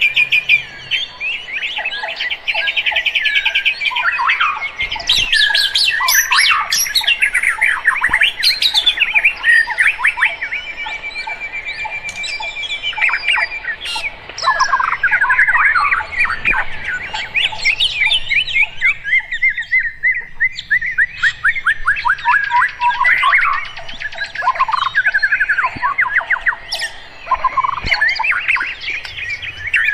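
Several birds singing and calling at once: a dense, unbroken mix of rapid trills, chirps and whistles, some calls harsh.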